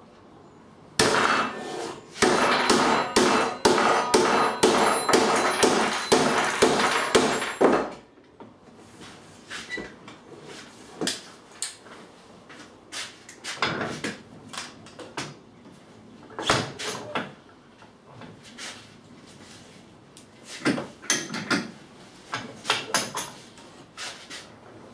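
A rapid run of hammer blows on a long metal tube, ringing, for about seven seconds, followed by scattered knocks and clanks as the tube is handled.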